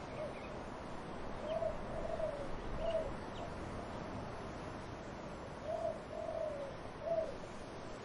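Dove cooing in three-note phrases, twice, the middle note of each phrase the longest, over a steady rush of wind in trees.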